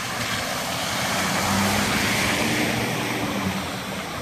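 Chevrolet pickup truck driving past through standing floodwater, its tyres hissing and spraying through the water over the engine hum. The sound swells as the truck passes close, then fades away.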